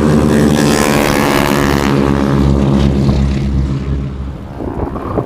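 Propeller aircraft flying past, its engine loud at first with a rushing sound on top, then fading away about four seconds in.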